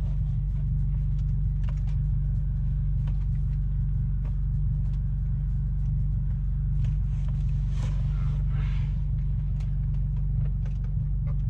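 A car's engine idling, heard from inside the cabin as a steady low drone. Scattered light clicks and rustles of cable and plastic trim being handled sit over it.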